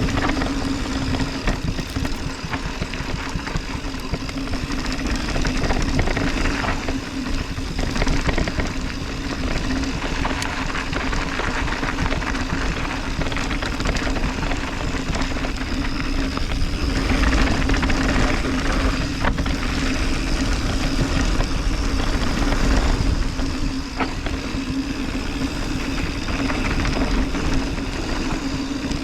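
Mountain bike descending a dirt downhill trail: tyres rolling over dirt and the bike rattling over bumps, with heavy wind noise on the microphone and a steady low hum.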